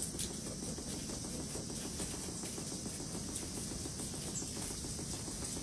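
A steady hiss with a low, rough rustle underneath and no distinct events.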